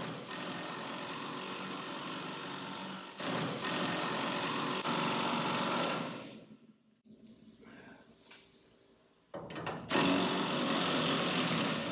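Impact wrench hammering as it runs a front suspension strut rod nut up tight. It goes in long runs, with a brief break about three seconds in and a longer pause from about six to nine seconds, then starts again.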